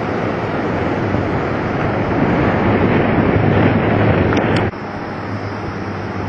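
Strong wind buffeting the microphone over crashing surf in a storm. The noise drops abruptly a little past halfway.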